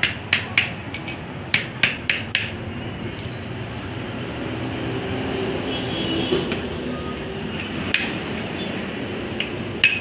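Sharp metal-on-metal taps, hammering a new bearing onto the shaft of a Mahindra Bolero gearbox. There is a quick run of about seven strikes in the first two and a half seconds, then a few more near the end.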